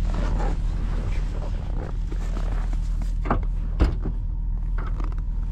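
A steady low hum under a series of scattered knocks and clunks of things being handled, with one sharper knock a little before four seconds in.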